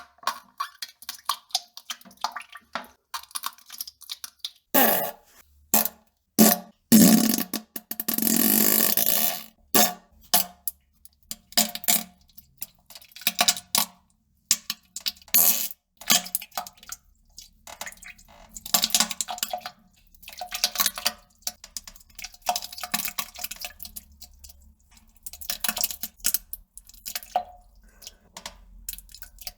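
A rapid series of fart and poop noises, mostly short sputters separated by brief silences, with one longer one lasting about two and a half seconds about seven seconds in.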